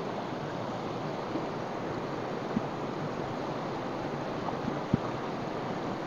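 Shallow mountain river rushing steadily over stones and rapids, with two brief faint clicks, a little before halfway and near the end.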